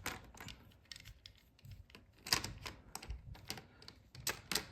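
Die-cast toy cars and plastic track being handled: irregular light clicks and knocks, the loudest about two seconds in and again near the end.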